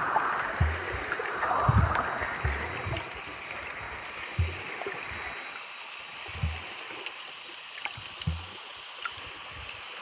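Underwater sound picked up by a camera below the surface: a hiss of moving water that swells in the first few seconds, with dull low thumps at irregular intervals of about a second and faint scattered clicks.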